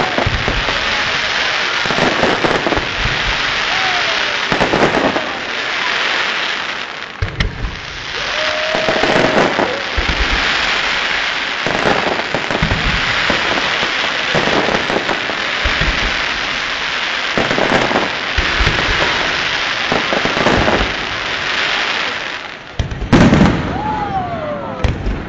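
Aerial fireworks display: a dense, continuous crackling with repeated deep booms of shells bursting. A few whistling glides in pitch run through it, one falling near the end.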